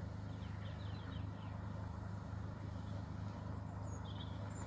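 Outdoor ambience: a steady low rumble under small birds chirping, with a quick run of chirps about a second in and another short call near the end.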